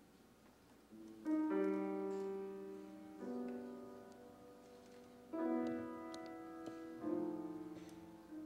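Slow piano music begins about a second in: a new sustained chord about every two seconds, each left to ring and fade.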